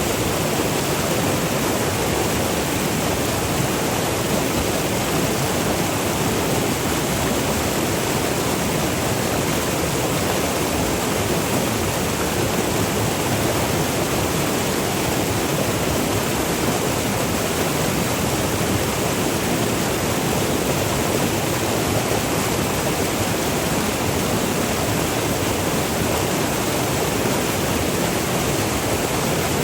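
Steady rush of the Virgin River's water over small waterfalls and rapids, an even, unbroken noise.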